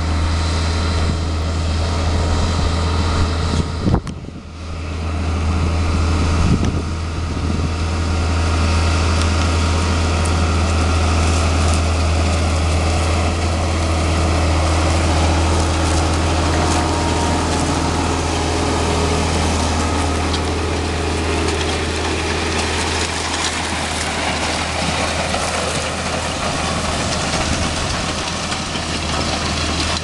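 Large tractor's diesel engine running steadily under load while pulling a multi-furrow plough through the soil, a deep constant drone, with a brief knock about four seconds in.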